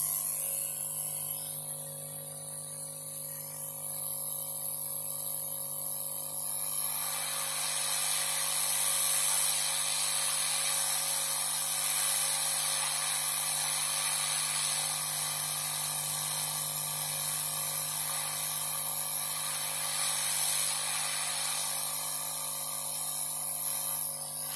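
Hot air rework gun blowing steadily over a motherboard while a replacement RT9607 IC is soldered in. The airflow hiss grows louder about seven seconds in and then holds steady over a faint steady hum.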